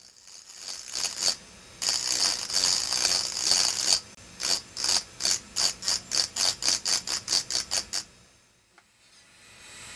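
Engraving drill's small burr grinding into an optical crystal glass block, a high gritty grinding. It comes in strokes, held for about two seconds, then in quick short strokes that get faster, and stops about eight seconds in.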